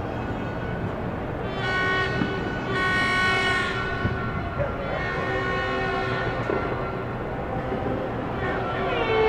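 Horns blowing long, steady blasts in celebration, one after another over a steady background din; a louder, higher-pitched horn starts near the end.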